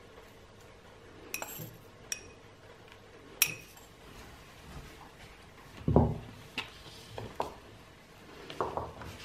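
A metal spoon clinking a few times against a small ceramic bowl of freeze-dried strawberry pieces. About six seconds in comes a louder, dull thump of something set down on the table, then a few softer knocks.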